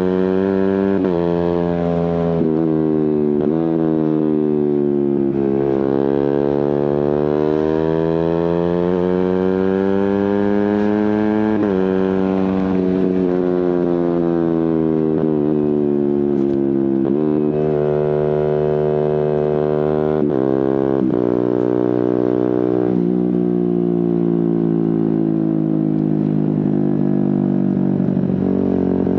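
Suzuki GSX-R150's single-cylinder engine through a Prospeed aftermarket exhaust, pulling through the gears: the note climbs steadily and changes pitch sharply at each quickshifter gear change, several times over, then falls slowly near the end as the bike slows.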